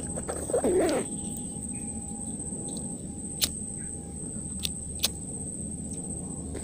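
Mangrove ambience: a steady high-pitched insect drone over a low hum of open air, with a short wavering call about half a second in and a few sharp clicks near the middle.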